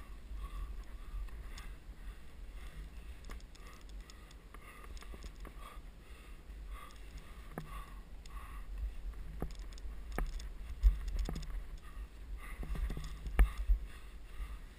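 Low rumble and rustle of a head-mounted camera moving with a climber on sandstone, with scattered light clicks of climbing gear and shoes against the rock. There are a couple of sharper knocks in the last few seconds.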